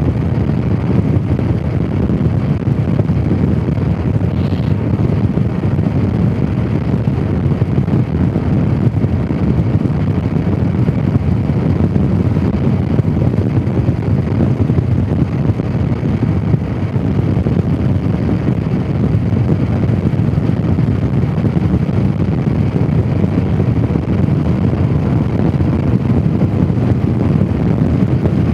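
Honda CRF250 Rally's single-cylinder four-stroke engine running at a steady cruise, mixed with wind rushing over the microphone, with no change in speed or pitch.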